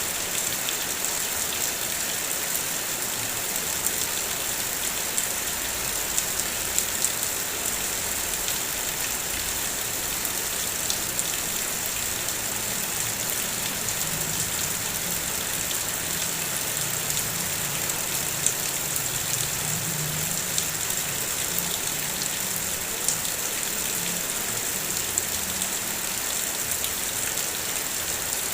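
Heavy rain falling steadily, a dense even hiss with scattered sharper drop hits. A faint low hum joins in from about twelve seconds and fades near the end.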